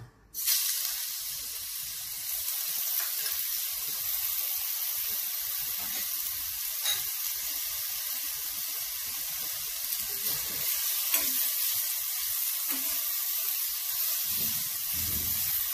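Grated bottle gourd sizzling in hot oil in a steel wok. It starts suddenly as the gourd goes in and runs steadily, with occasional light clicks from a metal stirring spoon.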